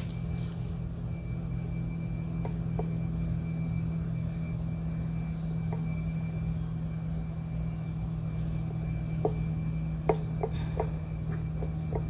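Steady low background hum with a few faint, light clicks near the end.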